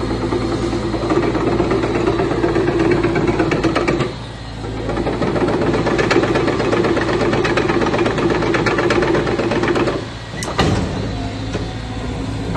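Cat 320GX excavator's diesel engine running loudly, easing off briefly twice, with light clicking throughout and a sharp knock near the end.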